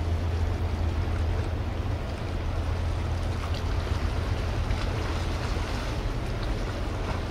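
Car ferry PHIVOS approaching, its engines a low, steady drone, with wind on the microphone and a wash of water.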